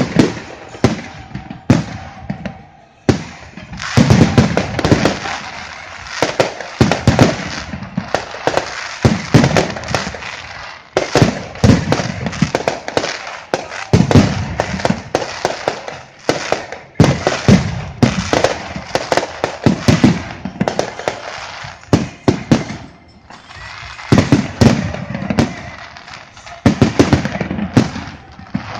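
Fireworks display: a dense, continuous barrage of bangs from bursting shells mixed with crackling, easing briefly about three seconds in before going on as heavily as before.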